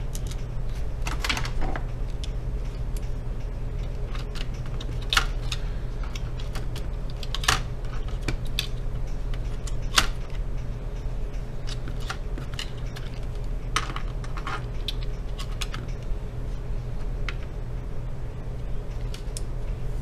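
Scattered small clicks and taps of plastic and metal parts as a laptop's motherboard and components are pressed and fitted back into its chassis, the sharpest about five, seven and ten seconds in, over a steady low hum.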